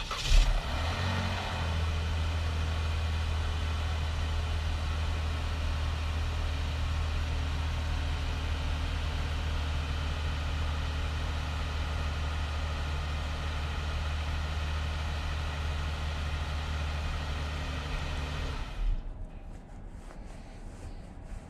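Jeep Grand Cherokee engine catching at the very start and then idling steadily for about 18 seconds before it is switched off, with a thump as it stops.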